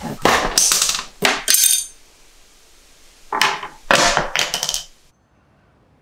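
Small hard objects clattering and rattling in two bursts, each about one and a half seconds long and about two seconds apart.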